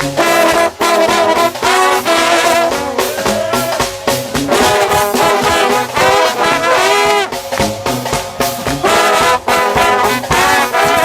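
Trombone shout band playing gospel music loudly, several trombones sounding together with sliding, bending notes over sharp rhythmic hits.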